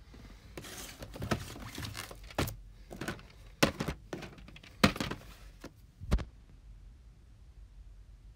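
VHS tape cases being handled and shifted on a wooden tabletop: rustling with a string of sharp plastic knocks and clacks, the loudest about three and a half, five and six seconds in, then it stops.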